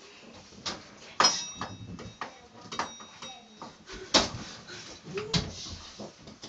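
Several scattered knocks and clatters, the loudest about four seconds in, one just over a second in followed by a brief high ringing.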